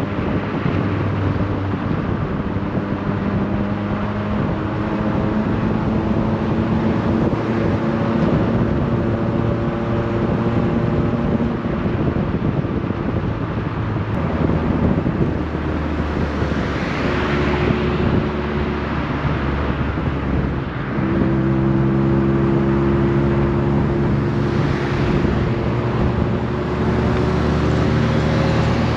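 Car engine running as the car drives along at city speed, heard through an open side window over road and wind noise. About 21 seconds in, the engine note drops away briefly, like a gear change, then rises slowly as the car pulls again.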